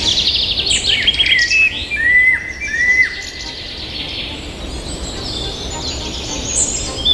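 Several songbirds singing at once: overlapping chirps and fast trills, with two clear whistled notes about two seconds in.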